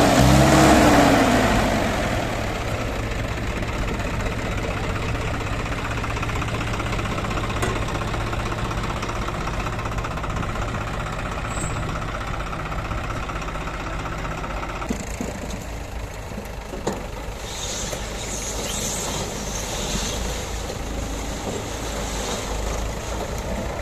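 Diesel tractor engines running: one revs up and drops back down in the first second or so, then the engines settle into a steady idle.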